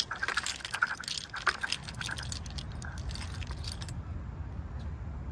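Light metallic jangling and clicking for the first three or four seconds, then stopping, over a steady low rumble of wind on the microphone.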